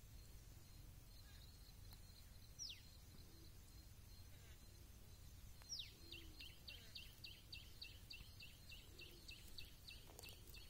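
Faint bird song: two sharp falling whistles, then a quick run of short falling notes, about four a second, over low background noise.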